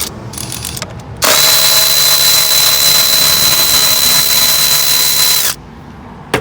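Power drill with a 10 mm socket spinning at a steady speed for about four seconds, backing out the hold-down bolt of an ignition coil. It starts about a second in and stops abruptly.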